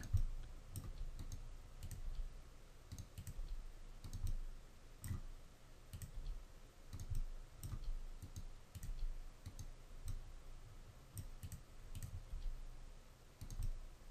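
Irregular light clicks of a computer mouse and keyboard while editing a 3D mesh, the G key tapped repeatedly between mouse clicks, with soft low thuds under some of the clicks.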